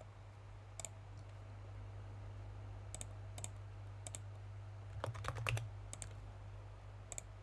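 Scattered clicks of a computer keyboard and mouse, a quick run of them about five seconds in, over a steady low electrical hum.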